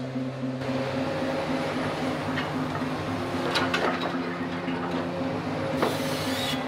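Tracked demolition excavator running, its engine giving a steady hum that pulses a few times a second, with sharp metal clanks and scraping from the grab handling debris about halfway through and again near the end.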